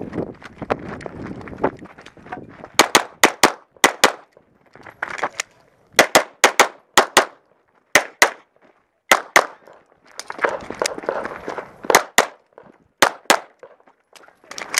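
Semi-automatic pistol fired close up in fast strings and pairs: a quick run of about six shots, another of about six, then several double-taps about a second apart, with rustling and scuffing between the strings.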